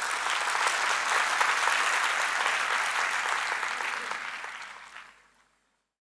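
Audience applauding, a dense clatter of many hands clapping that fades away about five seconds in.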